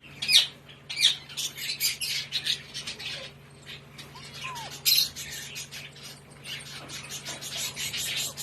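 Month-old Alexandrine parakeet chicks squawking in rapid runs of short, harsh calls, loudest in outbursts near the start and about five seconds in, with a couple of short falling whistles between.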